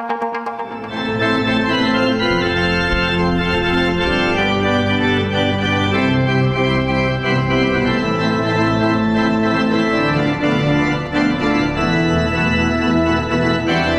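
Church pipe organ playing full sustained chords over deep bass notes, entering about a second in as the last tone of a short logo jingle dies away.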